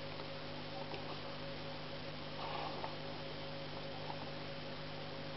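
Steady low electrical hum, like mains hum, with a few faint ticks and a brief soft rustle about halfway through.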